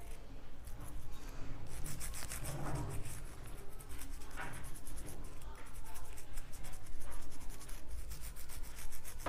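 Bristles of an old toothbrush scrubbing under fingernails to clear out trapped dead skin: quick, repeated scratchy strokes.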